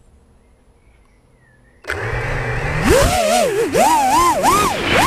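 FPV racing quadcopter's motors and propellers starting suddenly about two seconds in, heard from the quad's own camera. The whine then rises and falls in pitch again and again as the throttle is worked through takeoff and low flight.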